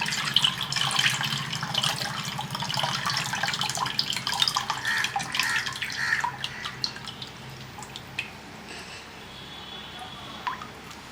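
Soaked tamarind being mixed and squeezed by hand in a bowl of water: wet sloshing and splashing, busy for about the first six seconds, then quieter with a few scattered drips.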